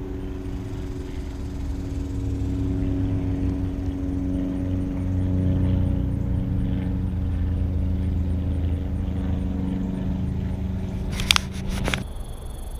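Motor-vehicle engine hum from highway traffic, a steady drone that swells over several seconds and then cuts off suddenly near the end, just after a short cluster of sharp clicks.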